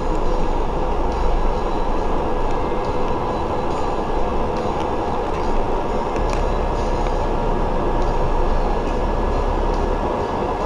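Steady ride noise of a double-decker bus in motion heard from its top deck: a low engine and road rumble with a few faint clicks and rattles.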